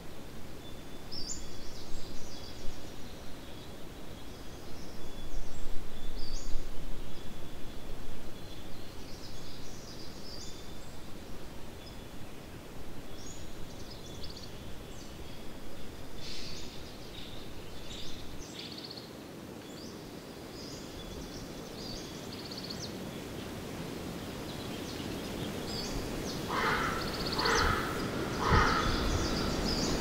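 Forest ambience: scattered short, high bird chirps over a low, steady rush of background noise, with a quick run of louder calls near the end.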